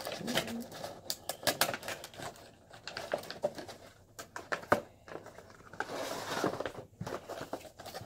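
A plastic bag crinkling and a cardboard toy box rustling and tapping as a vinyl figure is worked back into its box and the boxes are handled. Irregular clicks and rustles, with a longer crinkle about six seconds in.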